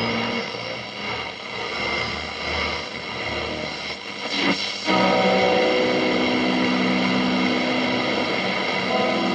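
1953 Loewe Opta Meteor 526W tube radio playing through its loudspeaker: at first hiss and steady whistles, then a brief sliding tone about halfway through. After that, music comes through noticeably louder.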